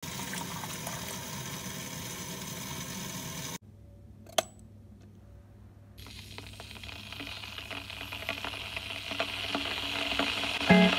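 Tap water running into a stainless-steel electric kettle; it cuts off suddenly, a single sharp click follows, and then the kettle heating up, a hiss with faint crackling that grows steadily louder. Guitar music comes in just before the end.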